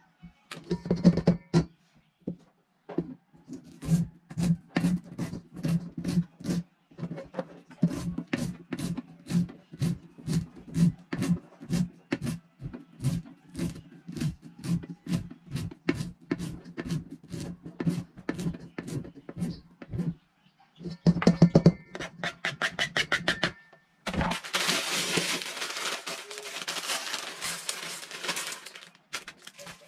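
Kitchen knife chopping green chillies and coriander on a plastic cutting board: a run of sharp taps about two a second, quickening into a fast burst of chopping about two-thirds of the way in. Then the crinkling rustle of a plastic instant-noodle packet being handled and opened.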